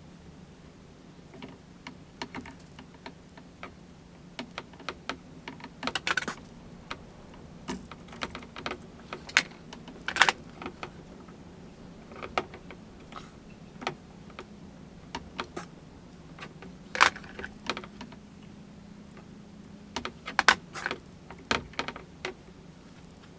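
Irregular clicks, taps and knocks of small hard parts and hand tools being handled, with a few louder knocks, over a faint steady low hum.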